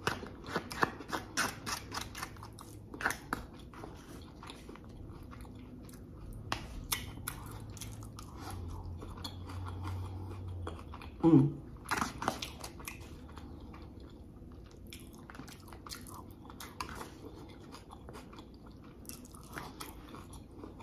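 Close-up chewing and biting of a takeout bowl of lettuce, rice and chicken: many small wet, crunchy mouth clicks, busiest in the first few seconds. About eleven seconds in comes one short falling hum of the eater's voice.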